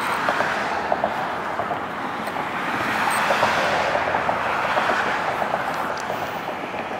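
Road traffic passing on a bridge roadway: a steady rush of tyre noise that swells around the middle and fades again.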